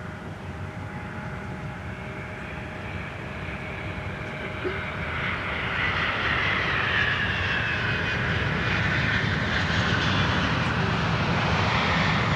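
FedEx MD-11F three-engine jet freighter on arrival, its jet engines' rumble and high whine growing steadily louder as it approaches, swelling most about five seconds in.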